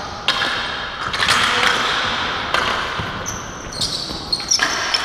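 Ball hockey play on a bare concrete arena floor: sharp knocks of plastic sticks and the hard ball striking the floor, several times, echoing in the large hall.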